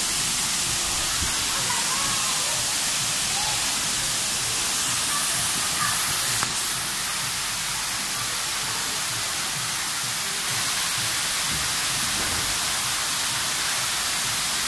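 Steady rushing hiss of water pouring from a cascading fountain into a shallow wading pool, with a short bump about six seconds in.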